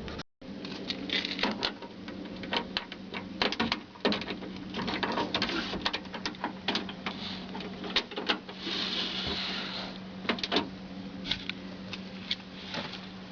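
Irregular light clicks and knocks over a steady low hum, with a short burst of hiss about eight and a half seconds in.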